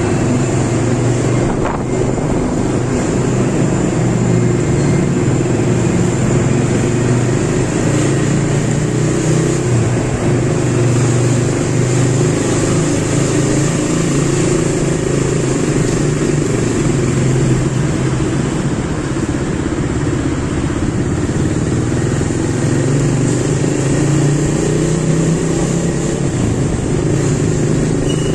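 Small motorcycle's engine running steadily as it is ridden, its pitch holding fairly even throughout.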